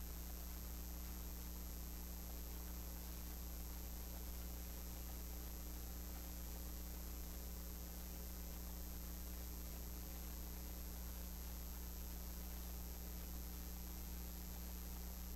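Steady low electrical mains hum with a faint hiss from the sound system; nothing else stands out.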